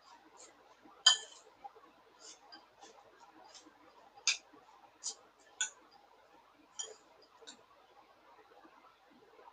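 Metal spoon stirring dry bhel of puffed rice and sev in a glass bowl: irregular clinks of spoon on glass, the loudest about a second in, over a soft rustle of the puffed rice.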